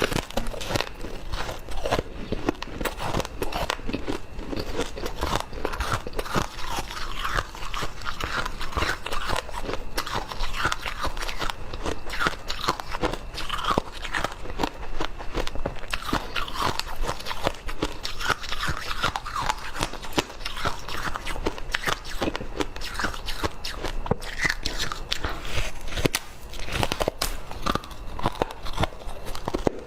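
A person biting and chewing ice, with dense, steady crunching.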